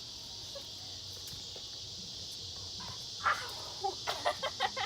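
Steady high chirring of insects, a cricket chorus, with a few short sounds near the end.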